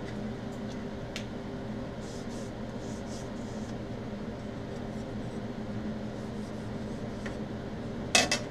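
Thin mild-steel sheet coupons being handled and wiped with an alcohol-dampened rag: faint rubbing and light ticks over a steady low hum, then a few sharp metallic clinks near the end as a plate is set down.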